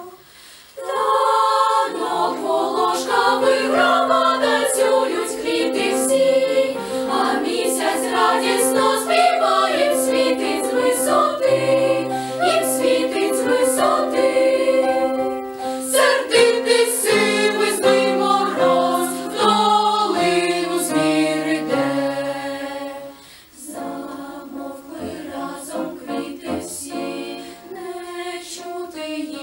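A choir singing a sustained, many-voiced passage. It starts about a second in after a brief pause and drops back briefly about 23 seconds in.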